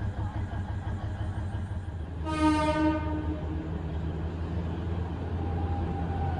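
Alishan Forest Railway diesel train sounding one short horn blast about two seconds in, over the steady low rumble of the running train.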